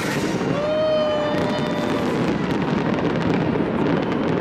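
Fireworks display crackling and popping over a loud, steady crowd din. About half a second in, one held high tone with overtones sounds for about a second and a half.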